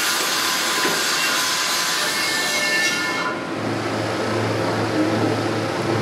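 Top-loading washing machine running, churning its load of water and clothes with a steady rushing noise; a little over three seconds in the hiss drops away, leaving a steady low motor hum.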